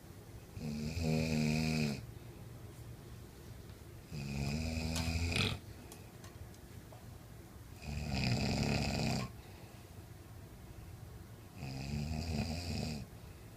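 A man snoring in his sleep: four loud snores, each lasting over a second, coming at an even pace of about one every three to four seconds, with quiet breathing between them.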